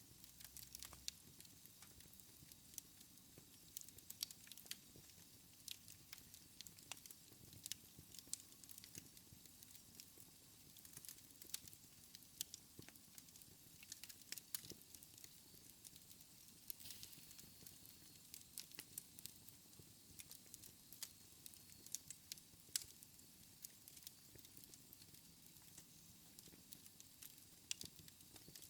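Wood fire burning in a fireplace, crackling softly: irregular small snaps and pops over a faint low rumble.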